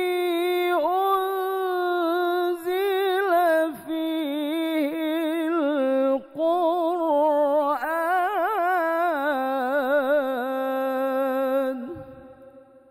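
A man chanting the Quran in the melodic mujawwad style, one voice holding long drawn-out notes with wavering, ornamented runs. The phrase ends and fades out about twelve seconds in.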